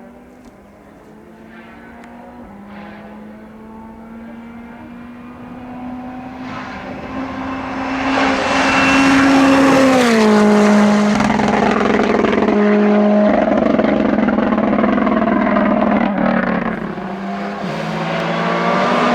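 Rally car engine approaching at speed, growing steadily louder with its note slowly climbing. About halfway through it is at its loudest and the pitch drops sharply. It stays loud for several seconds, then briefly fades near the end.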